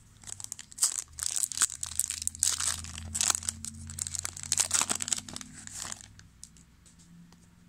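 Foil wrapper of a 2000 Topps Season Opener football card pack crinkling and tearing as it is ripped open: a dense crackle of rustles and sharp snaps that dies down about six seconds in.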